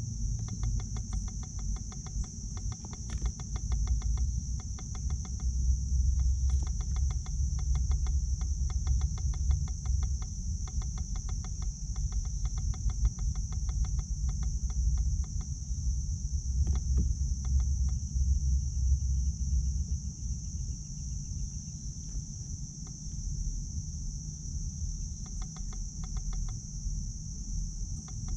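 Steady, high-pitched chorus of crickets, with rows of fine regular ticks for much of the time and a low rumble underneath.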